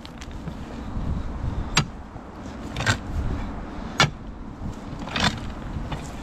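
Long metal pry bar striking and levering against loose limestone rocks: four sharp clinks about a second apart, with low scraping and handling noise between them.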